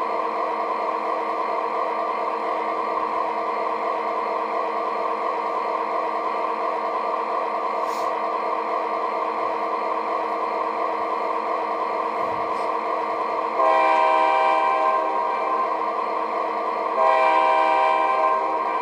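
O scale model diesel locomotive's onboard sound system playing a steady diesel engine drone, with two horn blasts near the end, each about a second and a half long and a few seconds apart.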